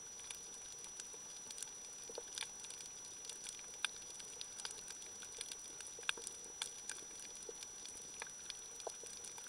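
Underwater reef crackle, typical of snapping shrimp: irregular faint clicks and pops over a steady hiss, with a thin steady high whine throughout.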